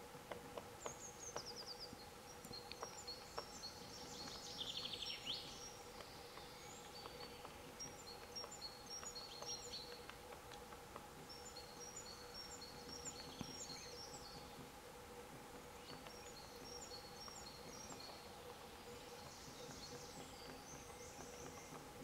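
A small songbird sings short phrases of quick, high-pitched repeated notes, one phrase every four to six seconds. A few faint sharp taps come in the first seconds, where a grey-headed woodpecker pecks at tree bark. A faint steady hum runs underneath.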